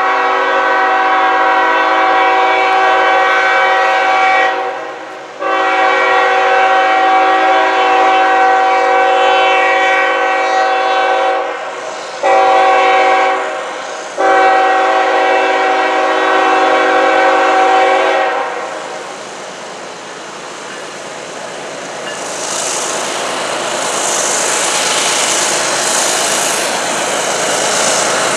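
Norfolk Southern diesel freight locomotive's air horn sounding the grade-crossing signal: two long blasts, a short one and a long one. After the horn stops, the locomotives' engines and the train's wheels on the rails grow louder as it draws near, with a rising hiss in the last few seconds.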